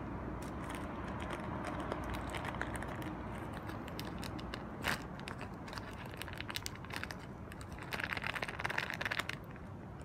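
Kitten crunching dry cat food: scattered small crunchy clicks, one sharper crack about five seconds in, and a dense run of crunching about eight seconds in, over a steady low background hum.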